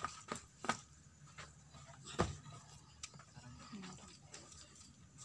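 Scattered sharp knocks and scuffs from men grappling and stepping on packed dirt during sparring, the loudest about two seconds in.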